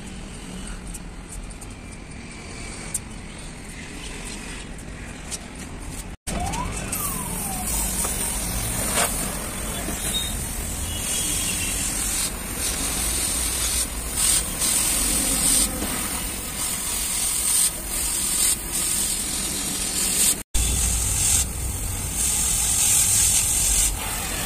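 Oxy-fuel gas cutting torch hissing steadily as it cuts a steel sheet, coming in about six seconds in and running with small rises and dips in level.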